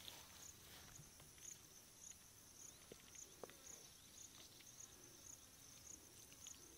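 Near silence, with faint insect chirping: a high pulse repeating about twice a second, and a few soft clicks.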